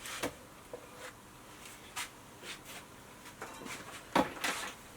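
Scattered small clicks and knocks of hands handling the box and a USB charging cable, the loudest about four seconds in.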